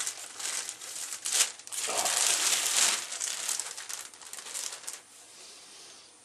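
Packaging crinkling and rustling as a newly arrived music controller is unwrapped. It is loudest about two to three seconds in and dies away around five seconds.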